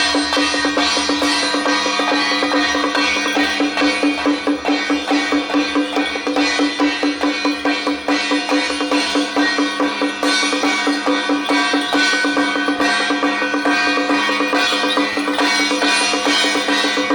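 Temple-procession music for a Jiajiang troupe: drums and percussion beaten in a fast, even rhythm of about five beats a second, with held pitched instrument tones over them.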